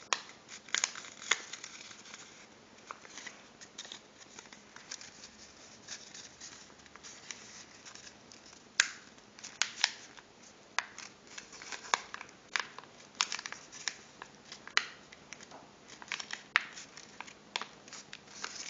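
Paper being handled and pressed into shape: irregular sharp crinkles and clicks from a rolled paper tube being squared up.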